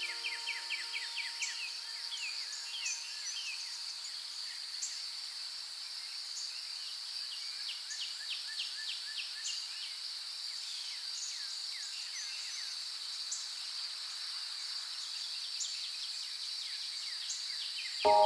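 Nature ambience: a steady high insect drone with many short bird chirps over it. A few soft music notes die away in the first two seconds, and music comes in right at the end.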